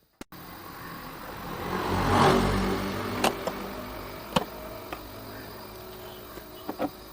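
A motor vehicle passing by, rising to its loudest about two seconds in and then fading, with a few sharp clicks afterwards.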